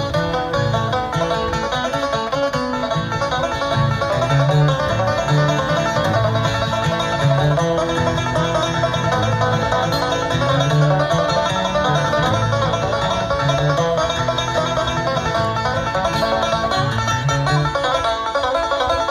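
Bluegrass-style music with banjo and guitar picking over a stepping bass line.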